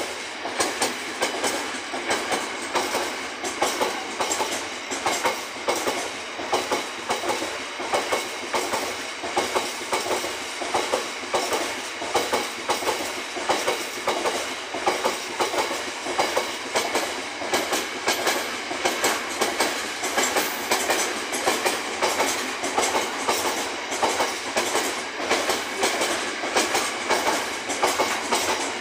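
Container freight train's wagons rolling past close by, their wheels giving a rapid, steady, rhythmic clickety-clack over the rail joints.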